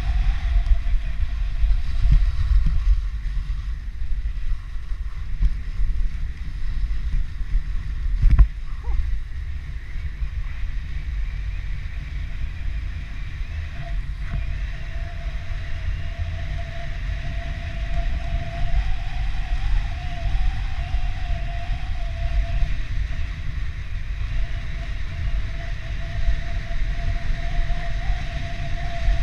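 Toboggan sliding fast over packed snow, the runners hissing and scraping, with heavy wind rumble on the microphone from the speed. A faint wavering whine runs underneath, and there is a sharp knock about eight seconds in.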